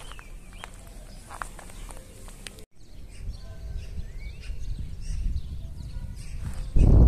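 Small birds chirping over a low outdoor rumble; the sound drops out for an instant about two and a half seconds in. Near the end a sudden, much louder low rumble takes over.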